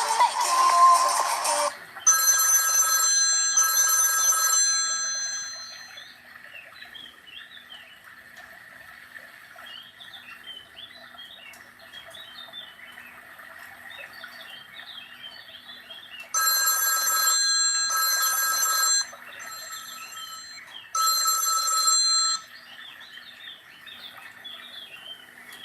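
Samsung GT-C6712 mobile phone playing ringtones through its loudspeaker: a musical tune cuts off about two seconds in. An electronic bell-like ring follows, a double ring that fades over a few seconds, then rings again in two bursts later on. Faint chirps sit in the quiet between the rings.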